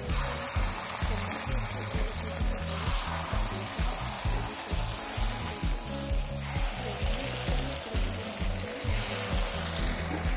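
Red lentil (masoor dal) batter frying in hot oil in a kadhai, a steady sizzle as fresh spoonfuls go in, over background music with a steady beat.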